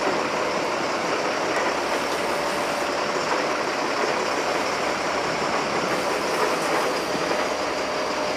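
Sport-fishing boat under way, its engines running with a steady drone and rush of noise.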